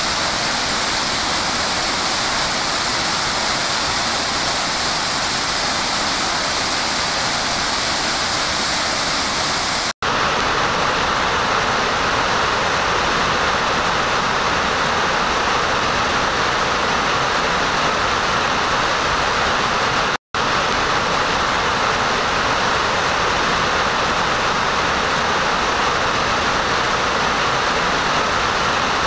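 Steady rushing of a large waterfall, heavy whitewater and spray pounding below it. The sound cuts out for an instant twice, about ten and twenty seconds in. After the first break the rush is deeper, with less hiss.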